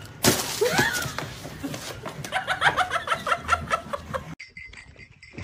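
A sudden loud noise and a short cry near the start as a man falls, then loud laughter in quick ha-ha bursts, cut off abruptly about four seconds in.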